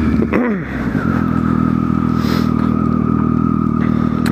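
Triumph Street Triple RX's three-cylinder engine running at steady revs while riding, its pitch dropping about half a second in as the throttle comes off, with a steady high whine over it from about a second in.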